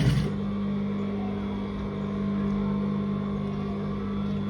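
Electric sewing machine running steadily, stitching a zipper into fabric, its motor giving an even hum. A brief rustle right at the start.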